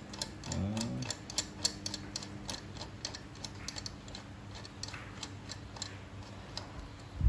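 Knurled height-adjustment knob on a Makita metal workpiece support being turned by hand to lower it, giving a quick, uneven run of light clicks that thins out over the last couple of seconds.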